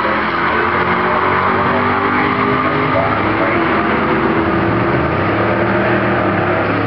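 Two drag-racing cars' engines at full throttle, accelerating hard down the strip side by side in a steady, loud run.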